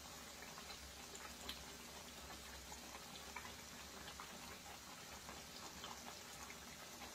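Faint bubbling and popping of thick potato korma gravy simmering in a steel kadai on a gas burner, small scattered pops over a low steady hum.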